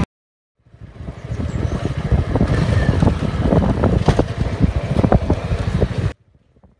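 Wind buffeting the microphone of a motorcycle-mounted camera while the bike is ridden, a rough gusting noise that swells up about half a second in and cuts off suddenly near the end.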